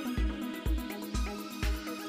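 Background music with a steady kick-drum beat, about two beats a second, under held synth-like tones.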